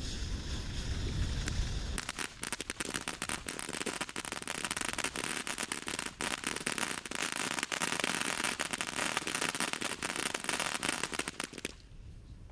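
TNT Night Treasure firework fountain crackling: a dense, rapid run of many small sharp pops, starting about two seconds in and cutting off abruptly near the end. Before it there is a low rumble of wind on the microphone.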